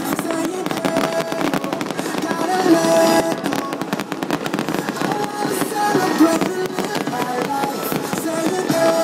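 Aerial fireworks bursting and crackling, a dense run of pops and bangs that is thickest about three seconds in, over music playing throughout.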